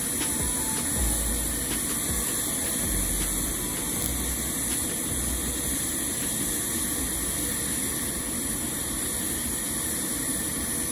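TIG welding arc on steel pipe, a steady hiss during the root pass.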